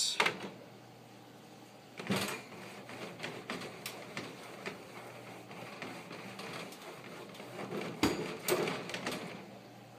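Norwex bathroom scrub mitt scrubbing along the wire bars and base rim of a small-animal cage: irregular rubbing and scraping, with sharper knocks about two seconds in and again near the end.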